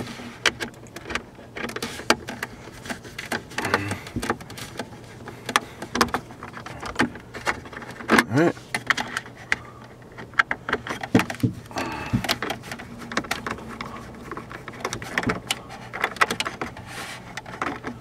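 Screwdriver backing out T20 Torx screws inside a car's plastic dashboard. Irregular small clicks and scrapes of the metal bit and the plastic trim come and go throughout.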